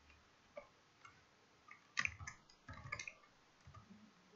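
Faint computer keyboard typing: a few single keystrokes, then short quick runs of key clicks through the second half.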